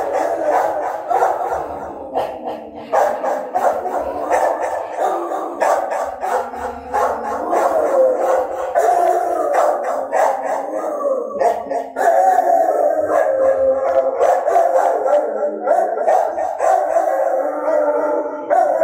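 Two Rottweilers howling together in long, wavering howls.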